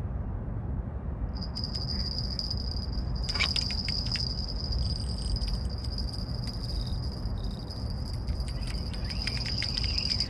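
A high, steady insect trill, likely a cricket, starts about a second in and keeps going, with faint ticking through it. It plays over a loud, steady low rumble.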